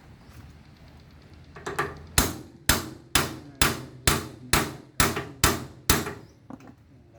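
Hammer blows, about nine in an even run of roughly two a second, stopping about a second before the end.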